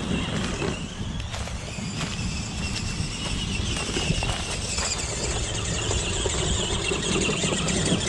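Battery-electric RC truck motors and geared drivetrains on 2S LiPo packs whining as the trucks crawl and drive. The high whine rises and falls with the throttle, over a low rumble.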